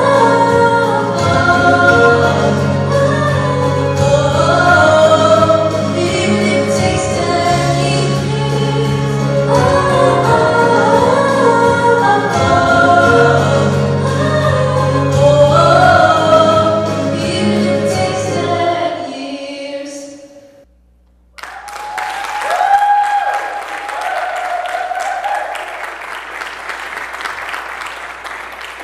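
Solo female voice singing a pop song over a full instrumental accompaniment, with the music fading out about twenty seconds in. After a short pause the audience applauds.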